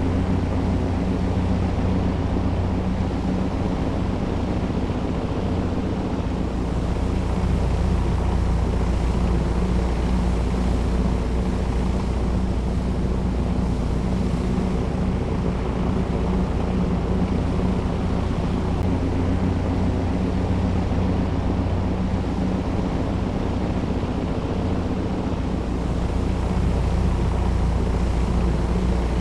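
Airport ambience: a steady low mechanical drone with a hum of several steady tones over a wash of noise.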